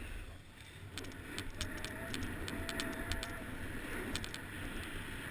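Skis hissing and scraping over packed snow on a steady downhill run, with wind rumbling on the camera's microphone and a scattering of faint sharp ticks.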